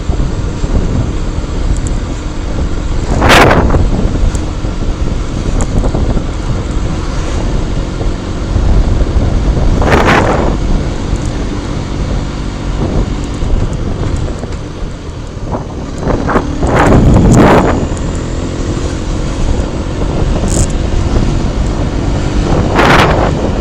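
Wind buffeting the microphone of a helmet-mounted action camera on a moving 2017 Mondial HPS 125i motorcycle, with its single-cylinder engine running underneath. Four brief louder whooshes stand out, spaced about six or seven seconds apart.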